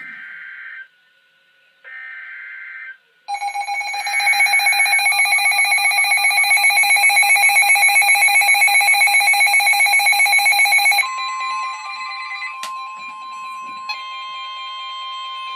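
Emergency Alert System tones: two short bursts of the screechy data header, then the loud, fast-pulsing EAS attention signal for about eight seconds. Near the end it gives way to a quieter, steady single-pitch alert tone.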